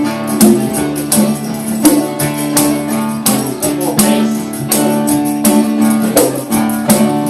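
Instrumental intro of a folk ballad played by a band: strummed guitar and tambourine keeping a steady beat under sustained chords.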